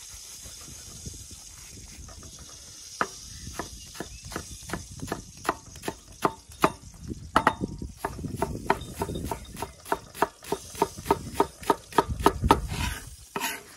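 Chef's knife chopping a shallot on a wooden chopping board: a run of sharp knife taps on the wood that starts about three seconds in and settles into a steady chop of about three strikes a second.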